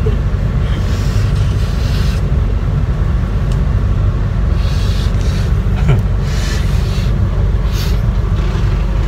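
Steady low rumble of a bus, heard from inside the passenger cabin, with a few brief rustling noises about halfway through.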